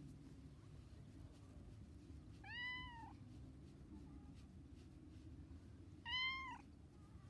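Cat meowing twice: two short calls that rise and fall in pitch, about three and a half seconds apart, the second one louder.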